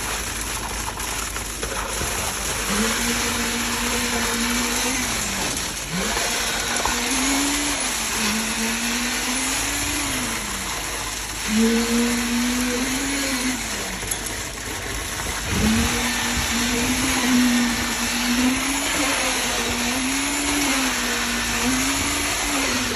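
Concrete-pouring machinery running: a motor hum whose pitch rises and falls every couple of seconds, dropping sharply a few times, over a steady rushing noise.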